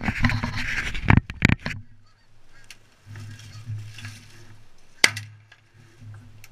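Geese honking and clucking, loud and rapid for the first two seconds, then fainter and scattered, over a low hum. A single sharp click about five seconds in.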